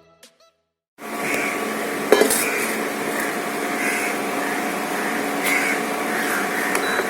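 A steady machine hum with a couple of held tones, like a small motor or fan, starting about a second in after silence, with a sharp click about two seconds in.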